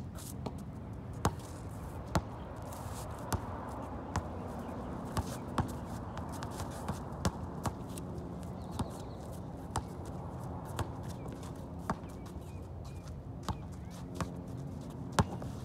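Basketball bouncing on an outdoor court: sharp, irregular bounces, roughly one every half second to a second, over a steady low background rumble.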